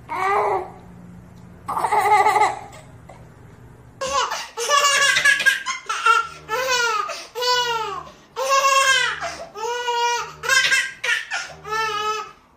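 A baby squeals briefly twice, then from about four seconds in laughs hard in long runs of high belly laughs, one burst after another.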